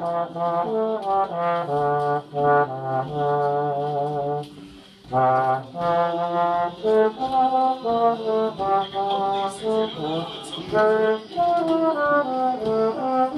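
Tenor horn playing a folk tune: a run of held, pitched brass notes, with a short break about five seconds in.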